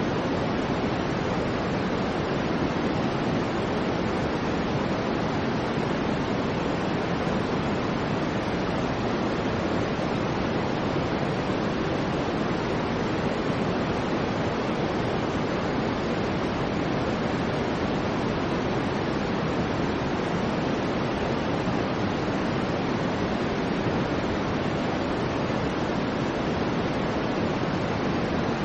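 Soft white noise for sleep: a steady, unbroken hiss weighted toward the lower, deeper range, with no changes in level.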